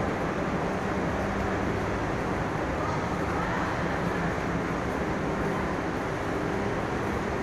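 Steady background din of a railway station walkway, a constant hum and rush with faint, indistinct voices.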